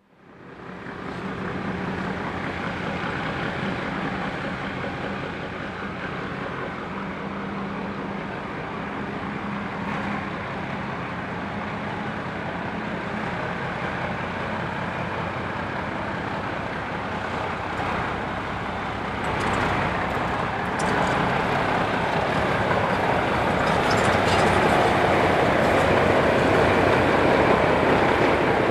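Hudswell Clarke 0-6-0 diesel shunter hauling a short train of coaches, its engine running steadily and getting louder as the train draws near. Wheels start clicking over the rail joints from about two-thirds of the way in.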